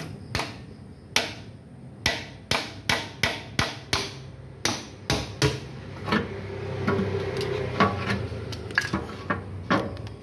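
Repeated sharp knocks of hand-tool work on a car engine: about a dozen loud hammer-like strikes in the first five or so seconds, several in quick runs, then lighter knocks and a scraping rub.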